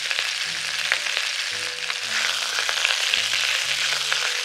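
Slices of pork belly sizzling steadily in oil in a wok over low heat, their fat starting to render, with the light scrape and tap of a mesh spatula moving them about.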